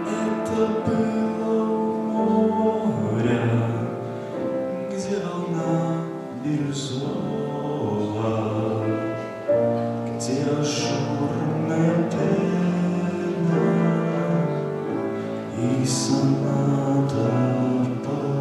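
Instrumental music playing the closing passage of a Russian romance: slow, sustained chords over a bass line, the harmony shifting every second or two.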